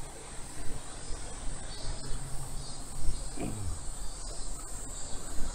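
Cicadas buzzing in steady pulsing waves, over a low wind rumble on the microphone from riding. A brief falling tone comes about three and a half seconds in.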